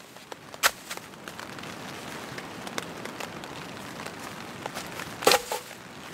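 Rain pattering steadily on tent fabric, with scattered sharp taps of drops and two louder knocks, one about half a second in and one about five seconds in.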